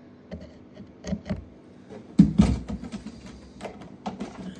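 Handling sounds as the oil jug and measuring cup are put down: a few light clicks and knocks, then one solid thump about two seconds in, followed by smaller knocks and rubbing. A faint steady low hum runs underneath.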